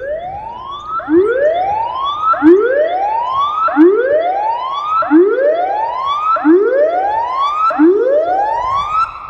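Electronic tsunami warning siren cluster sounding its test alert tone: a loud rising whoop repeated about every 1.2 seconds, eight times over, ahead of the spoken test announcement.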